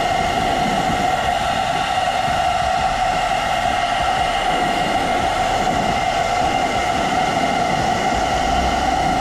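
Philips SenseIQ hair dryer running steadily at maximum speed on its high-heat setting: an even rush of air with a steady high whine from the motor.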